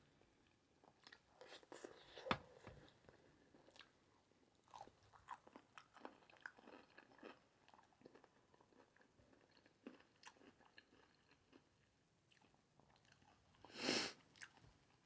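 Close-up eating sounds: quiet chewing, smacking and crunching from a person eating sausage, rice and cucumber, with a sharper click about two seconds in. Near the end there is a louder rushing noise lasting about half a second.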